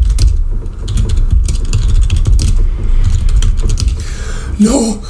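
Computer keyboard being typed on fast, a rapid, irregular run of key clicks during a timed typing test. A brief voice sound comes near the end.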